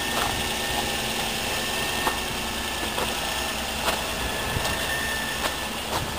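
2003 Nissan Maxima's 3.5-litre V6 idling steadily, with faint ticks about once a second.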